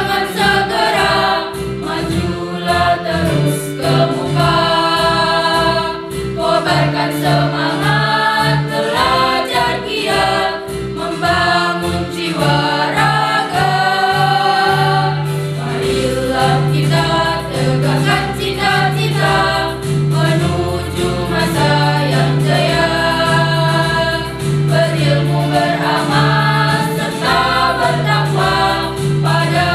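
Mixed youth choir singing a march with electronic keyboard accompaniment. Low keyboard notes hold under the voices and pulse more evenly from about halfway through.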